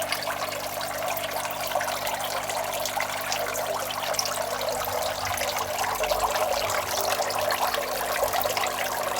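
Water trickling steadily into a goldfish tank, over a low steady hum.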